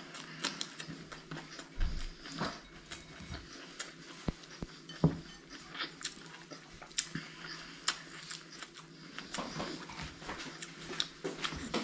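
Close-up eating sounds: chewing with a hand mixing rice against a ceramic bowl, heard as scattered small clicks, taps and wet mouth noises.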